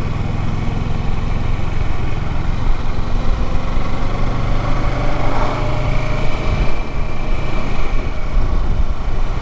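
Motorcycle engine running steadily while riding, heard from a microphone on the bike.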